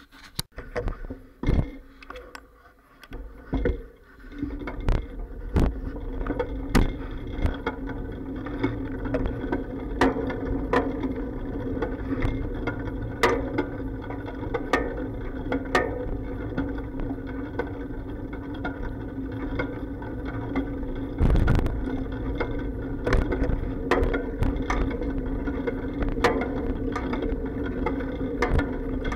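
Ride noise from a bicycle, carried through the bike into a sealed waterproof camera case. A few loose knocks come at first. Then there is a steady rolling rumble and hum, dotted with frequent clacks and bumps, with one heavier jolt about two-thirds of the way through.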